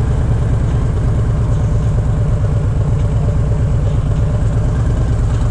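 Harley-Davidson Fat Bob 114's Milwaukee-Eight V-twin running steadily at low revs, a fast, even low pulse with no revving.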